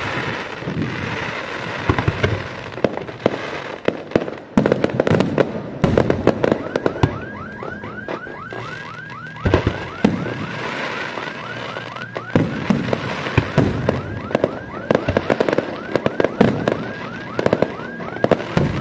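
Fireworks display: aerial shells bursting with repeated sharp bangs and crackle. From about six seconds in, a high-pitched whistle repeats evenly about three times a second under the bangs and stops shortly before the end.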